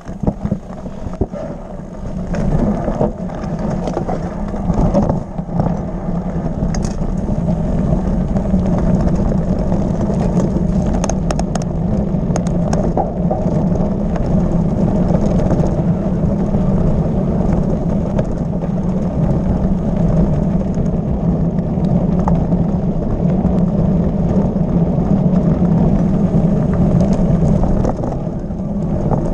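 Mountain bike rolling fast over a loose gravel track: a steady rumble and hum from the knobby tyres on the stones, with scattered clicks and rattles of bike and gravel, most of them in the first few seconds and again about eleven seconds in.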